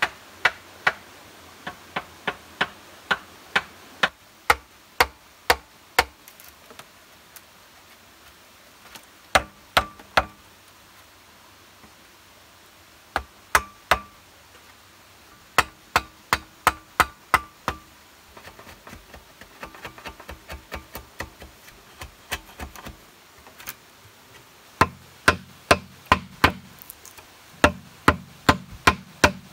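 Machete chopping a notch into a standing bamboo pole: a long series of sharp knocks, in runs of several strokes, with lighter, quicker taps in the middle and heavier strokes near the end.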